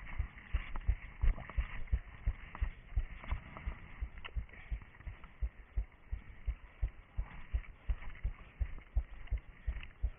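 A runner's footsteps on a forest floor, heard from a head-mounted camera: steady low thumps about three a second, with light crackling and rustling from the undergrowth.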